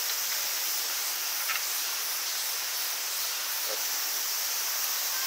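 Steady high-pitched outdoor hiss with no distinct events, the kind of ambience a summer campsite gives.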